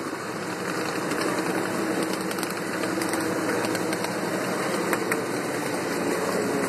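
Ride-on scale train running along its track: a steady rolling rumble of steel wheels on rail with a drive hum, and scattered sharp clicks as the wheels cross rail joints.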